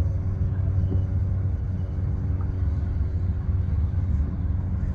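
Engine idling: a steady low rumble with a constant hum over it.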